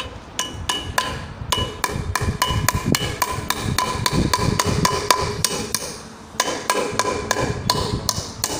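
Hammer blows on nails at a steel mounting bracket on a wooden plank, bending the nails over. There are about three to four knocks a second, each with a short metallic ring, and a brief pause a little past halfway.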